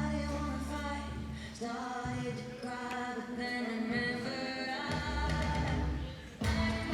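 Background music: a song with held sung notes over a bass line, dipping briefly and coming back louder near the end.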